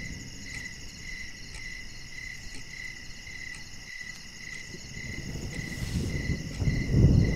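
Crickets chirping steadily, about two chirps a second, with a low rumble swelling near the end.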